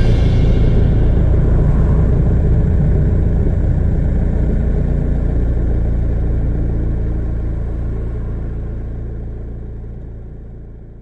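Steady low rumble of a moving vehicle with road noise, slowly fading out near the end.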